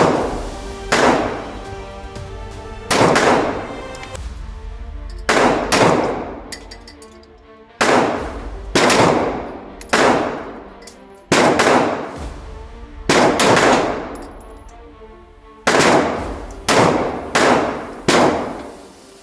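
Pistol gunfire: about seventeen shots fired at uneven intervals, some in quick pairs, each followed by a long, echoing decay.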